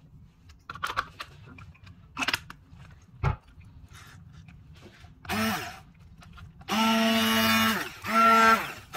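Stick blender puréeing pineapple flesh inside the hollowed-out fruit, run in short bursts: a brief one about five seconds in, then a run of about a second and two shorter bursts near the end, the whine dropping in pitch each time the motor winds down. A few light knocks come before it starts.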